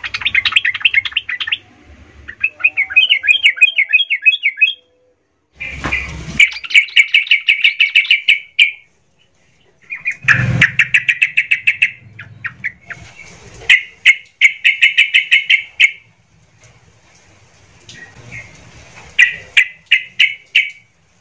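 Yellow-vented bulbuls singing agitated, gacor-style song: fast bubbly chattering phrases of a couple of seconds each, repeated with short pauses between them.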